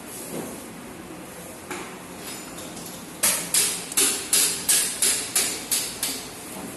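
Ratchet wrench clicking in quick, even strokes, about ten at roughly three a second starting about three seconds in, as a 10 mm bolt holding a scooter's fuel injector is backed out. A few light metal taps come before.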